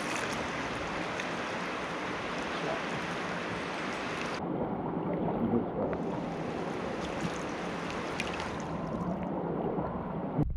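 Steady rush of river current flowing past a camera held just above the water surface, with light splashing from wading. The high hiss dulls for a moment about halfway through.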